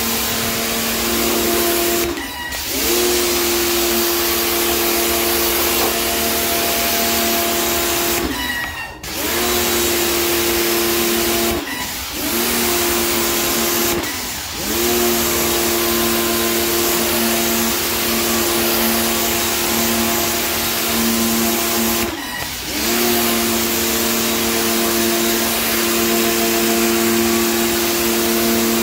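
Pressure washer running, its motor and pump humming steadily under the hiss of the water jet spraying the floor tiles. About five times the hum and spray cut out briefly as the trigger is released, and the hum climbs back in pitch as it restarts.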